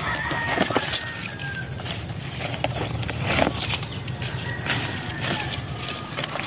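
Steady low outdoor background rumble, with scattered light rustles and taps from a hand handling potted strawberry plants.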